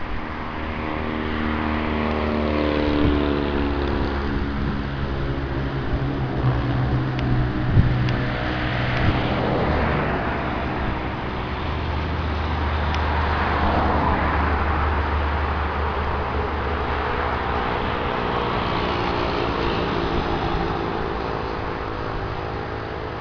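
Jet airliner engines running loud and continuous. A stack of humming tones slides slowly down in pitch over the first several seconds under a broad rush of engine noise.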